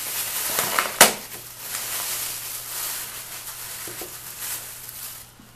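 Thin plastic packaging crinkling and rustling as it is handled, with one sharp click about a second in; the crinkling fades to quieter handling noises in the second half.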